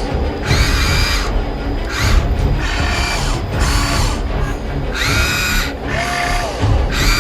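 Electric motors of a radio-controlled toy construction model whining in short bursts, each starting with a rising pitch, about one to two a second. Background music plays underneath.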